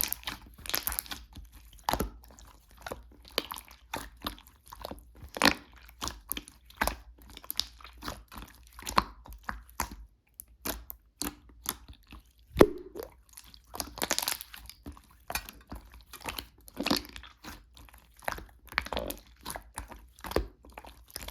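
Slime being kneaded, pressed and stretched by hand, giving an irregular run of sticky crackling clicks and pops.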